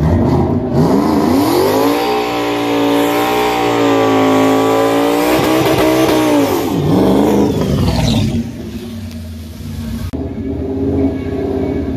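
Ford Mustang GT's 5.0 V8 revved up and held at high revs through a burnout, the pitch wavering while the rear tyres spin, then dropping back about seven seconds in to a lower, steadier engine note.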